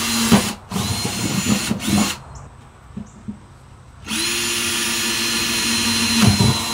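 Cordless drill with a 1/2-inch twist bit boring drainage holes through the bottom of a plastic planter. The motor runs with a steady whine, dips briefly, stops about 2 s in, and starts again about 4 s in, with a rough crackle as the bit cuts through the plastic.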